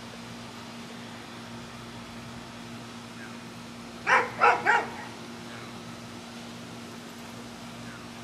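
American bully dog giving three quick barks in a row about halfway through, over a steady low hum.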